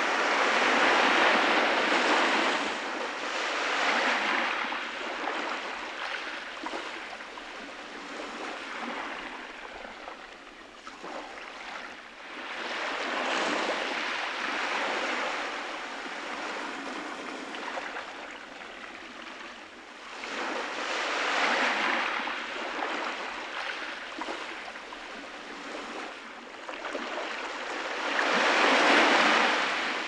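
Sea waves breaking and washing up a beach, in about five surges that swell and fade every several seconds, the loudest near the start and near the end.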